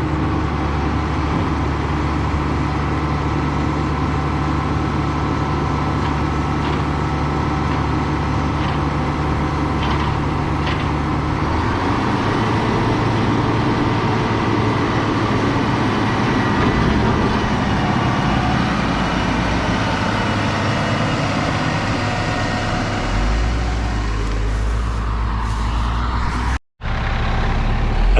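Heavy diesel engine of a truck or tractor running steadily, its note changing about halfway through and again near the end, with a short break in the sound near the end.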